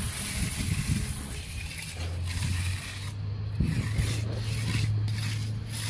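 Hand trowel scraping and rubbing across the face of freshly placed zero-slump concrete, smoothing the wall. A steady low hum runs underneath, strongest from about two seconds in.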